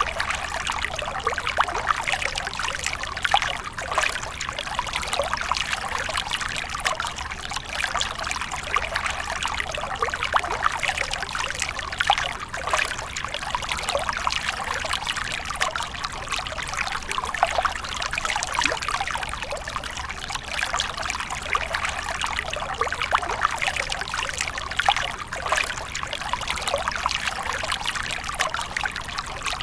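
Running water splashing and trickling without a break, made up of many small, quick splashes.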